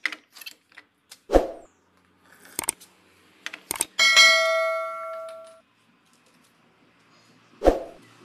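Edited-in subscribe-button sound effect: a bell ding about four seconds in that rings for over a second, with a few clicks and two sharp thumps around it, one early and one near the end.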